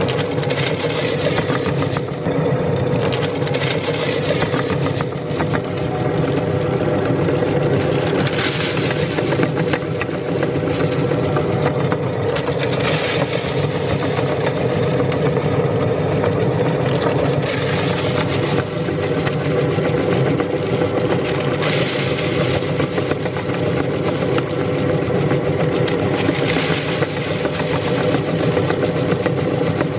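Electric meat grinder running steadily, its motor humming, with brief bursts of crackling every few seconds as crunchy cookies are crushed by the auger and forced through the cutting plate.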